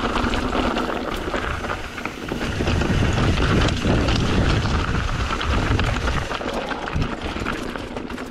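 Mountain bike rolling down a rocky, gravelly trail: the tyres crunch over loose stones and the bike rattles with many small knocks, while wind buffets the microphone. The noise grows quieter near the end.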